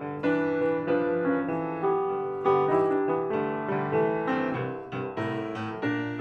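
Solo piano music: chords and a melody of struck notes that ring and die away, a new note or chord every half second or so.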